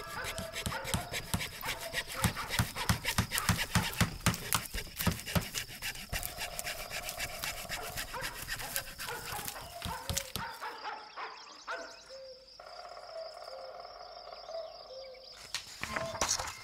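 Background music under sound effects: a fast run of rhythmic strokes fills the first half or so, then the music carries on more thinly with a melody, and a short swish comes near the end.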